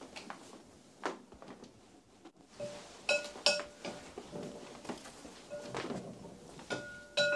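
Kitchen clatter: scattered knocks and clinks of things being handled and set down, several of them followed by a brief ringing tone.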